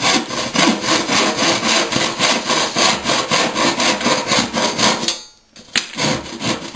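Handsaw cutting through wooden skirting board in rapid, even strokes, stopping about five seconds in, then a couple of short strokes. The saw is blunt, by its owner's account.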